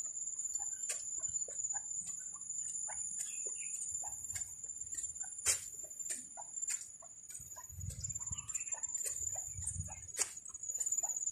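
Rural outdoor ambience: a steady high-pitched insect buzz, with scattered short clucks of chickens and bird chirps, and light, irregular taps of brisk footsteps on wet pavement.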